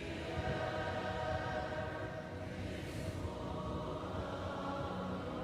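A worship congregation singing together with only their voices, holding long sustained notes of a chorus.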